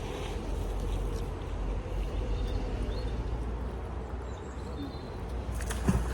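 Outdoor ambience: a steady low rumble of wind on the microphone with a few faint bird chirps, and one sharp knock near the end.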